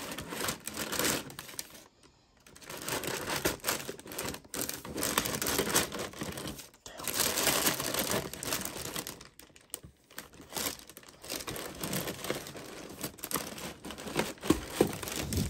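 Tissue paper rustling and crinkling as it is handled in a cardboard shoe box, with the box's cardboard tabs being worked. It comes and goes with brief pauses.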